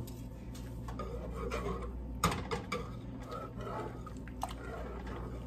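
Wire whisk stirring a warm milk, butter and sour cream mixture in a metal pot, with light clicks against the pot and a sharper clink about two seconds in. A steady low hum runs underneath.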